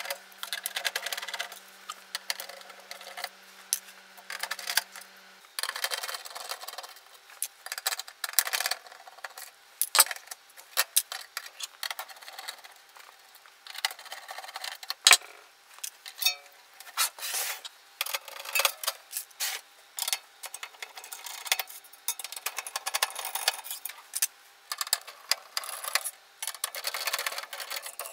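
Screwdriver working the screws on a stereo amplifier's metal back panel and chassis, with irregular small clicks, rattles and scrapes of metal parts being handled, and a couple of sharper clicks.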